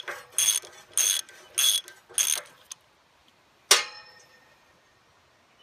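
Hand ratchet loosening a 9/16 carriage bolt on a steel rake tang: five quick bursts of pawl clicking, about two a second, that stop about halfway through. Then a single sharp clank that rings briefly.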